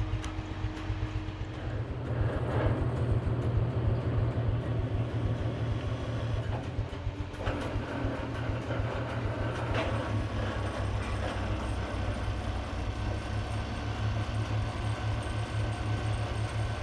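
Boatyard travelift's engine running steadily, growing louder about two seconds in as it takes the sailboat's weight in its slings, with a few short knocks.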